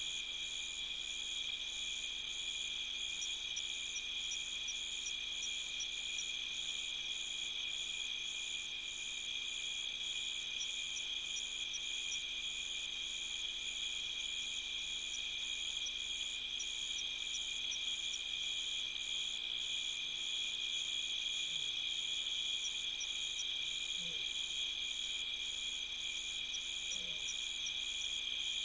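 Night insect chorus of crickets: a steady, shrill trill, with a higher chirp pulsing in an even rhythm over it.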